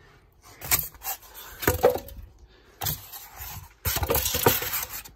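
Cardboard and foam packaging being pulled out of a box and handled: irregular rustling, scraping and a few knocks, with a louder, denser stretch of scraping about four seconds in.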